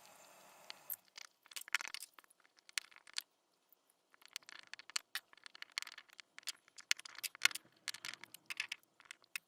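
A run of small irregular clicks and scrapes as a transistor's wire leads and jumper wires are pushed into a solderless breadboard, with a short pause in the middle.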